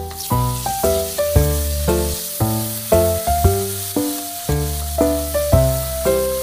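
Instrumental background music, a tune with notes struck about twice a second over a bass line, over the steady hiss of onions, garlic and tomato sizzling in sauce in a frying pan.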